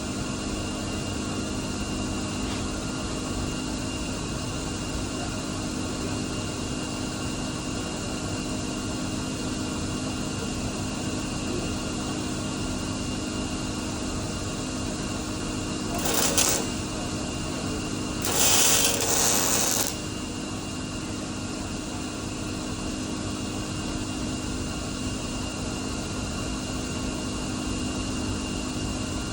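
Steady shop machine hum, broken about two-thirds of the way through by two short bursts of welding-arc crackle, a brief one and then a longer one of under two seconds.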